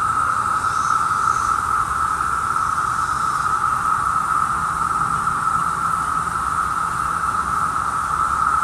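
Chorus of Brood II periodical cicadas (Magicicada): a loud, steady drone that holds one pitch without a break.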